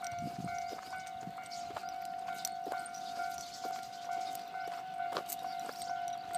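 Japanese railway level-crossing warning alarm ringing, a steady pitched tone pulsing in a regular repeating pattern, with scattered sharp clicks.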